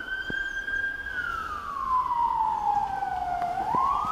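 A siren wailing: its pitch holds high, falls slowly, then climbs quickly again near the end.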